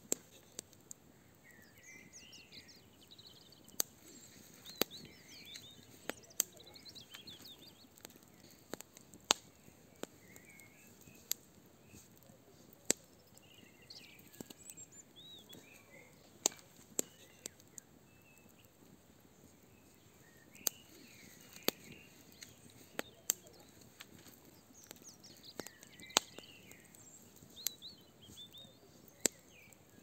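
Fire burning in a barbecue brazier, crackling with sharp, irregular pops every second or two. Songbirds chirp and sing throughout.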